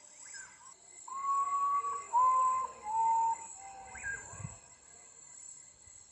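Common Potoo (Nyctibius griseus) singing its mournful song: four whistled notes, each a little lower than the last, the first one the longest. Insects trill steadily in the background.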